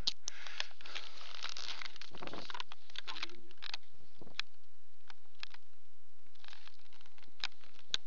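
Handling noise on a helmet camera's microphone: rustling and rubbing at first, then scattered sharp clicks and taps as the camera is moved about and set down close over a table.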